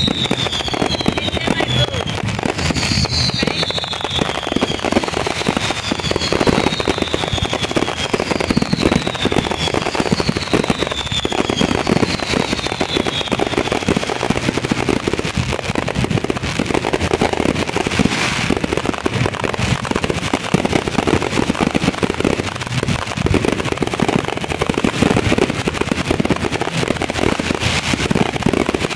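A dense fireworks barrage: continuous bangs and crackling from many shells bursting together. Through the first half, a series of high whistles falls in pitch every second or two.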